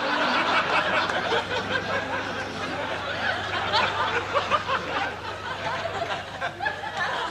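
Studio audience laughing: many voices laughing together at once.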